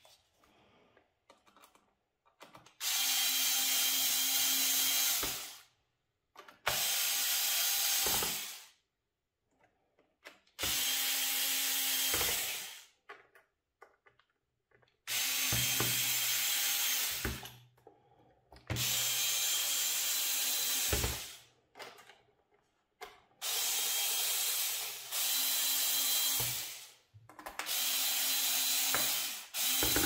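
Ferrex cordless electric screwdriver running in short runs of about two seconds each, about eight in all with pauses between, driving the screws of a laptop's bottom lid back in.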